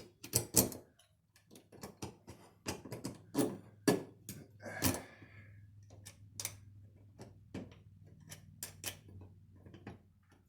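Irregular clicks and light metallic taps of small mounting hardware, the screws and bracket that hold a chandelier up, being handled and fitted, over a faint steady low hum.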